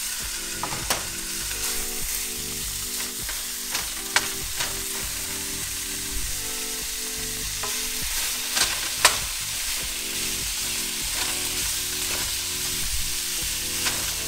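Thick-cut bacon sizzling as it fries in a hot nonstick wok, with a few sharp clicks of pieces or a utensil against the pan. The loudest click comes about nine seconds in.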